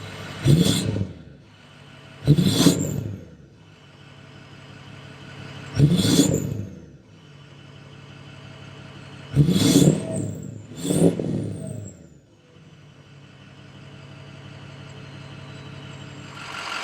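A 2007 Ford F-350's 6.0 Powerstroke turbodiesel V8 idling through a 5-inch MBRP cat-back exhaust with a small muffler, heard at the exhaust tip. It is blipped five times, each short rev falling back to idle.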